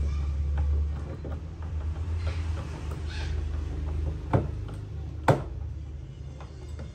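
Powered floor monitor's loudspeaker giving off a steady low mains hum, which drops back somewhat about a second in while its control knobs are handled. Two sharp clicks come through about four and five seconds in.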